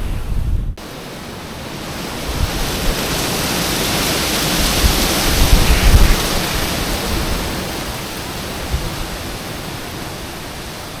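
Strong mountain wind gusting across the microphone: a rushing noise that swells to its loudest about five or six seconds in and then eases, with low buffeting thumps underneath.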